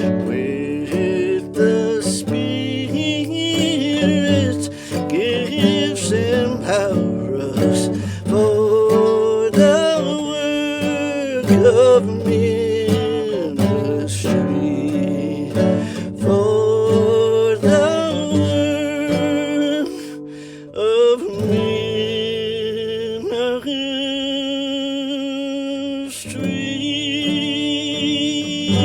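Background music: a gospel hymn arrangement with acoustic guitar, running steadily with a brief drop-off about twenty seconds in.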